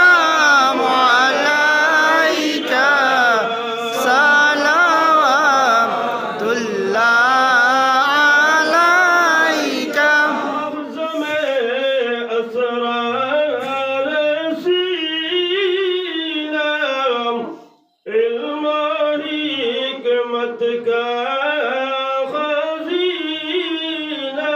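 Devotional milad chanting: Durud Sharif sung to a flowing melody by voice alone, breaking off briefly about three-quarters of the way through.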